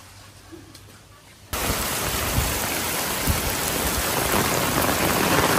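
Heavy rain pouring onto a wet paved courtyard, a loud, steady hiss that starts abruptly about a second and a half in after a quiet start.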